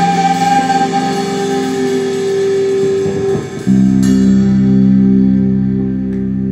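Live band of electric guitars and drums playing long sustained notes. A little past halfway the drums drop out and the guitars land on a loud, low held chord that rings on.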